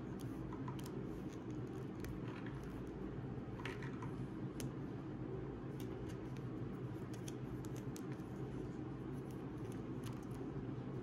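Faint, irregular small clicks and snaps of fingers working small rubber bands onto and over two pencils, over a steady low room hum.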